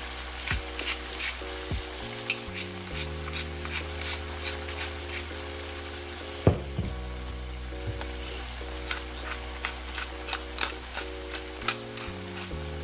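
Spaghetti, Vienna sausage pieces and cherry tomatoes sizzling and crackling in butter and cooking liquid in a pan, with one sharp click about halfway through. Soft background music with long held notes plays underneath.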